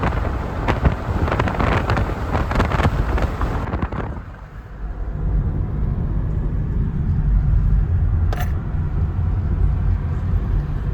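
A dense noisy hiss with scattered crackles, which cuts off about four seconds in and gives way to a steady low rumble like a running vehicle.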